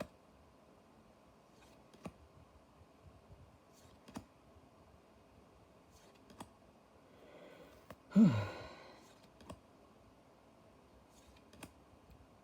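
Trading cards and booster-pack wrappers being handled: faint, sharp clicks and taps every second or two, with a short rustle and then a loud, falling voiced sigh about eight seconds in.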